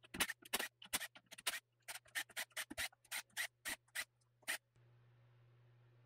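Cordless driver spinning out the clutch spring bolts on a Yamaha YZ250F engine's pressure plate, in a quick run of short trigger bursts that stops a little over halfway through.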